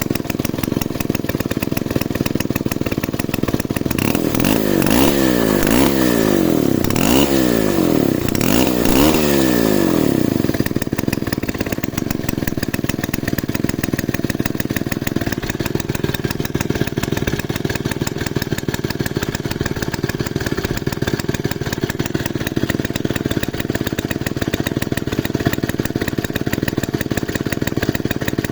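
Druzhba-4A two-stroke chainsaw engine running, revved up and down several times in quick succession in the first third, then settling to a steady idle.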